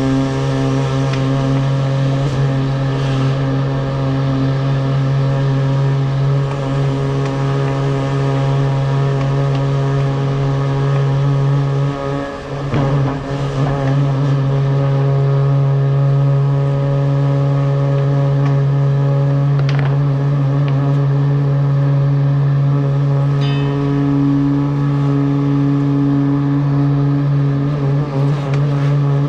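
Truck-mounted high-pressure drain-jetting pump running steadily at one pitch while jetting a sewer line. It wavers briefly about twelve seconds in, and its loudness starts to throb near the end.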